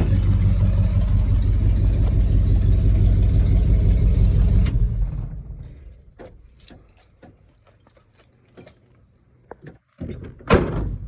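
A 1979 Ford F350's big-block V8 running steadily, then switched off about five seconds in, the sound dying away over a second. After it come a few light clicks and knocks, and a single sharp bang near the end.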